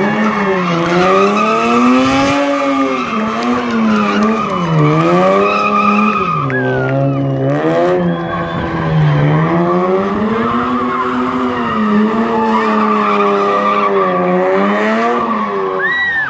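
Car engine revving up and down again and again, roughly every one to two seconds, as the car spins donuts with its tyres squealing and smoking.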